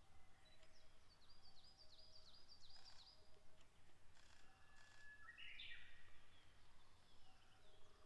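Faint birdsong of small wild birds: a quick run of repeated high notes in the first few seconds, then a short rising call a little past the middle, over quiet background noise.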